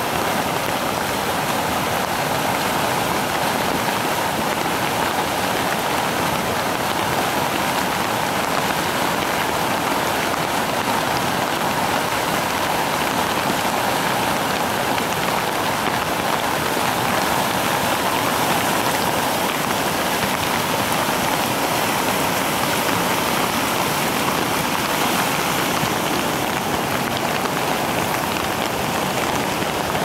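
Steady rushing noise of a muddy river in full flood, mixed with rain falling.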